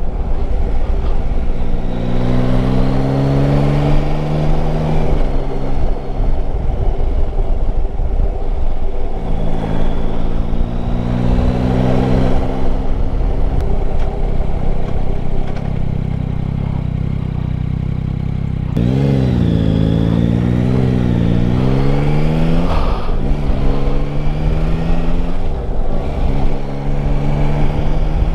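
Yamaha Tracer 9 GT's 890 cc three-cylinder engine pulling up through the gears, its pitch climbing and then dropping back several times. A little past two-thirds through, the revs rise and fall quickly a few times. Steady wind rush runs underneath.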